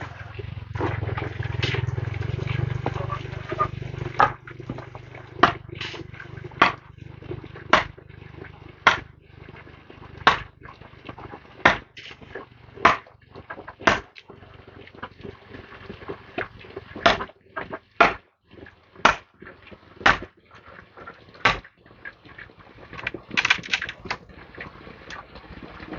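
A hand tool striking repeatedly, about one sharp blow a second with a short pause midway, as in farm work such as hoeing soil or chopping or driving bamboo.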